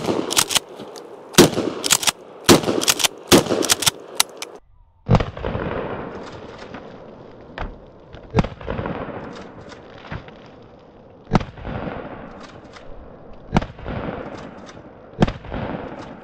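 Mossberg 590 .410 pump-action shotgun firing a string of 3-inch birdshot rounds, with the pump action clacking between shots. The reports come close together at first; after a brief dropout about four and a half seconds in, more shots follow about two to three seconds apart, each with an echoing tail.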